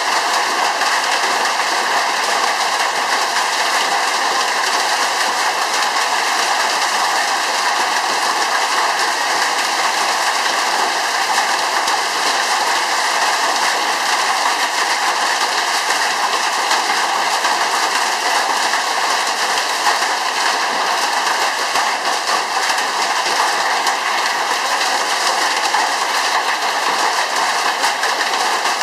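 Severe hailstorm: hailstones and rain pelting down steadily, a dense unbroken hiss with no let-up.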